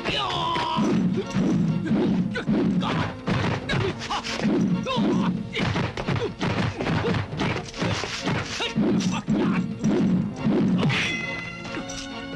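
Martial-arts film fight sound effects: a rapid run of punch and kick impacts, one after another, over a music score. The hits die away about eleven seconds in, leaving held music tones.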